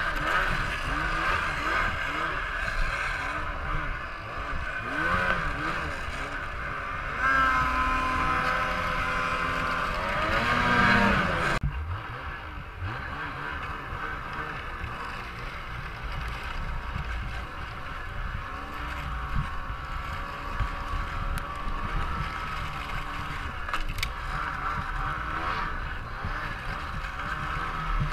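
Ski-Doo Summit 800X's two-stroke snowmobile engine revving up and down, climbing to a louder rev about ten seconds in. It breaks off suddenly and goes on at a steadier, quieter throttle.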